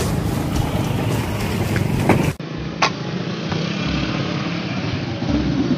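Motorcycle engines running as bikes pass along the road. The sound changes abruptly about two and a half seconds in, and near the end another motorcycle comes closer and gets louder.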